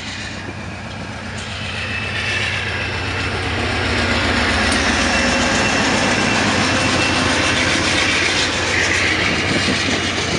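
McDonnell Douglas MD-11 jet airliner at takeoff power, its engine noise building over the first few seconds into a loud, steady roar with a faint whine. Underneath runs the steady low throb of an idling diesel locomotive.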